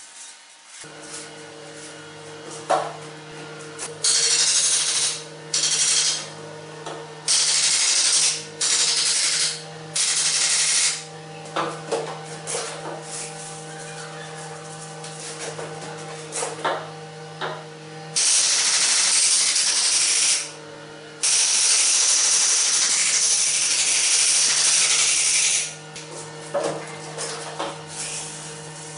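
Fine salt pouring through a funnel into an upright copper tube, a loud hiss of falling grains that comes in bursts: several short ones, then two long ones of two to four seconds near the end, with a few sharp clicks in between.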